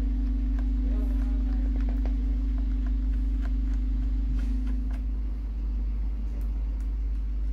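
Steady low electrical hum in the background, with a few faint, scattered ticks of a small screwdriver turning the screws in a laptop's plastic bottom panel.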